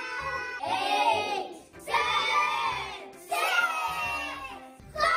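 Groups of young children shouting countdown numbers together, excited and shrill. Each shout lasts about a second and breaks off abruptly, and three of them follow in quick succession.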